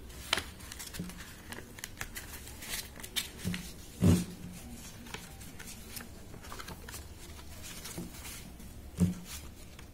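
A sheet of A4 paper rustling and creasing as it is folded and pressed flat against a tabletop by hand, with scattered light crinkles and two dull knocks of hands on the table, one about four seconds in and one near the end.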